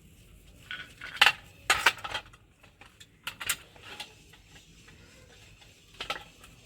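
A string of short, sharp clicks and clatters, like things being handled, loudest about a second to two seconds in, with a few more later.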